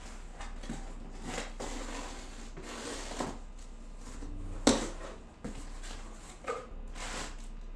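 Cardboard box flaps being pulled open and handled: a run of scraping and rustling of cardboard, with one sharp knock a little past halfway.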